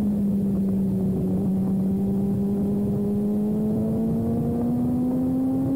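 Sport bike's engine under load through a long corner, heard from a camera on the bike's tail: its pitch sags slightly near the start, then climbs slowly and steadily as the bike drives out, over wind rush.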